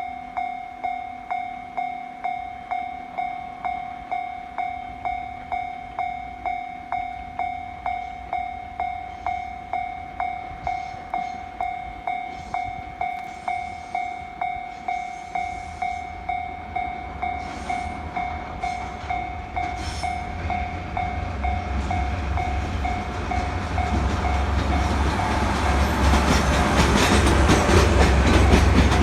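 Japanese level-crossing warning bell ringing in a steady, regular ding, about three strikes every two seconds. Under it a freight train hauled by a DE10 diesel locomotive approaches: its low rumble starts about halfway through and grows until it drowns out the bell near the end.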